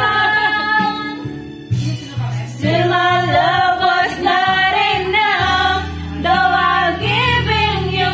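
A woman singing a slow love ballad, her voice rising and wavering on held notes over an accompaniment of steady low notes.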